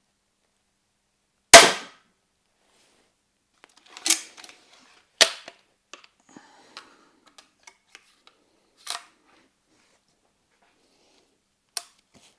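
Cobra System R9 pistol crossbow shot: a loud sharp crack from the string release and the bolt striking the foam target, about a second and a half in. It is followed by the clicks and clacks of the crossbow being re-cocked and a bolt being loaded, ending with one more sharp crack near the end.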